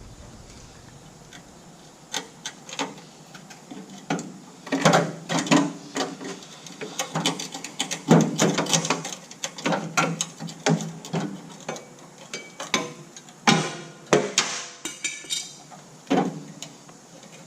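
Irregular metallic knocks, clanks and scrapes from sheet-metal work on the rusted lower door of a Ford L9000 truck cab, the rotten cut-out section being pried and worked loose. There is a short metallic ring about fifteen seconds in.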